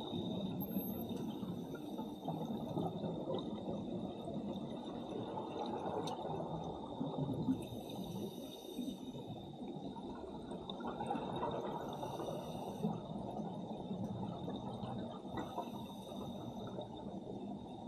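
Scuba diver breathing through a regulator underwater: a steady muffled rumble of water, broken every few seconds by a short hiss of exhaled bubbles. A faint steady high whine runs underneath.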